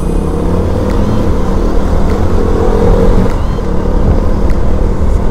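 KTM Duke 200's single-cylinder engine running steadily under way, heard from the rider's own bike.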